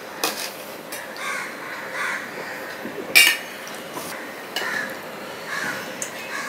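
Fingers mixing rice with fish curry on a steel plate, with scattered clinks of the steel plate and bowl, the loudest about three seconds in. Several short harsh calls sound in the background.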